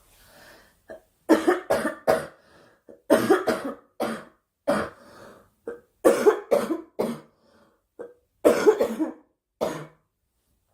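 A girl coughing in repeated fits: about five bouts of several short, loud coughs each, a second or so apart.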